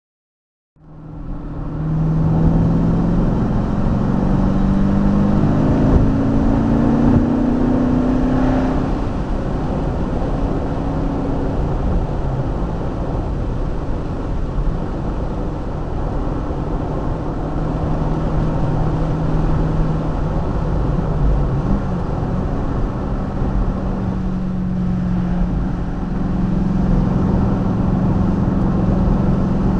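TVR Griffith 500's 5.0-litre Rover V8 heard from the cabin on the move, over tyre and road noise. The engine note climbs under acceleration for the first several seconds, drops back and runs steadily at cruise, then rises again near the end.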